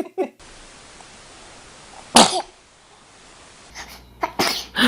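A baby's single sharp sneeze about two seconds in, over a faint steady hiss, with more short bursts of sound near the end.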